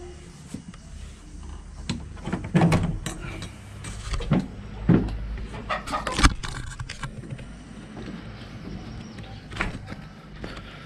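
Irregular thumps and rustling from a handheld action camera being moved about while walking, over a low steady rumble.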